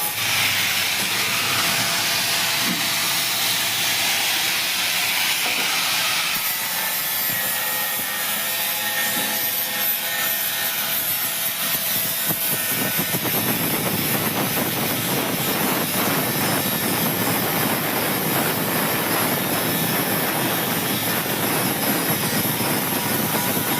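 Electric arc welding on a car: a steady hissing, crackling arc, which turns rougher and lower in pitch about halfway through.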